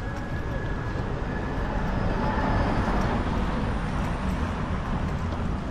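A Lexus SUV driving past on a town street, its tyre and engine noise swelling to a peak a couple of seconds in and then easing off.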